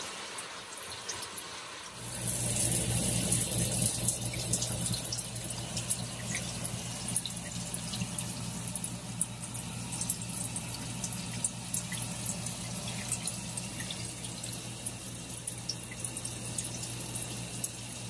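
Water spraying from a hand-held RV shower head in a steady stream, its flow smoothed by a newly fitted accumulator tank. About two seconds in the spray gets louder and a steady low hum starts beneath it.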